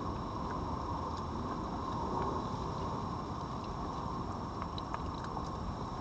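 Faint, scattered crunches of a red fox eating dry food from a bowl, over a steady low background hiss.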